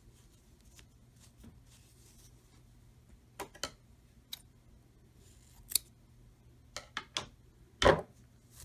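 Scissors snipping the yarn off a finished crochet piece: a few short, sharp clicks spread apart, the loudest a knock near the end.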